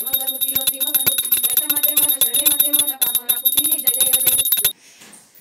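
Voices singing a Hindu aarti to quick, even hand-clapping, with a bell ringing steadily throughout; it all cuts off abruptly about four and a half seconds in.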